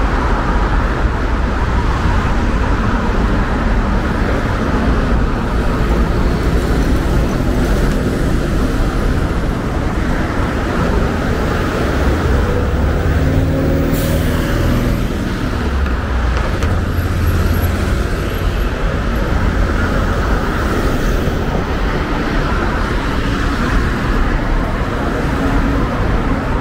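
Road traffic on a busy city street: a steady rumble of passing cars and buses, with a short, sharp hiss about halfway through.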